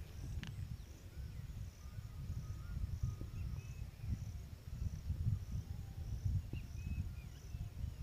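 Outdoor ambience: an insect chirping in short high pulses about twice a second, a few faint bird chirps, and a low rumble on the microphone.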